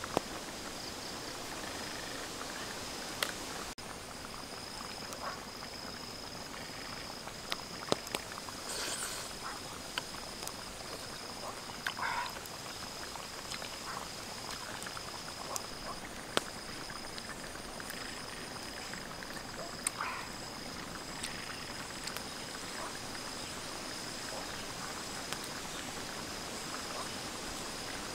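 Steady high-pitched trill of calling wildlife over a constant low hiss, with scattered faint clicks and short sounds of someone eating from a bowl.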